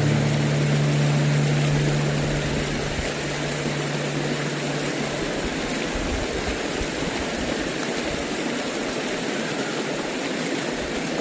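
Steady rushing of a small waterfall. The last low note of guitar music fades out over the first few seconds.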